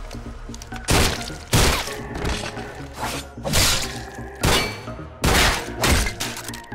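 Animated gunfight sound effects: about seven sharp shots and impact hits at uneven intervals, over a background music track.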